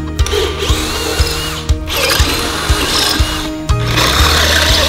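Electric drill boring out turn-signal mounting holes in the motorcycle's metal frame to about 0.405 inch, in three bursts with short pauses between them. Background music with a steady beat runs underneath.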